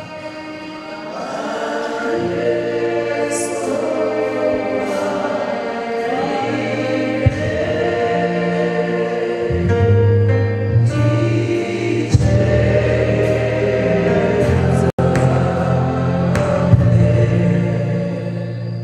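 Gospel choir singing over instrumental backing with a steady bass line; there is a brief dropout about 15 seconds in.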